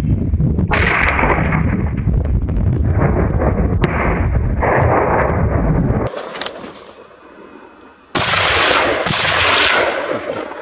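Two gunshots about a second apart, each with a long echoing decay, from a hunting gun fired at wild boar. Before them comes a loud, low, rumbling noise.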